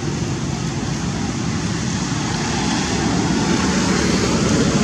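Steady low rumbling noise with no distinct events, swelling slightly near the end.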